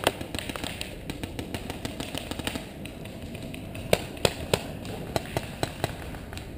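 Paintball markers firing in the woods: a rapid string of pops in the first second, then, after a lull, several sharper single shots spaced a few tenths of a second apart, from about four seconds in.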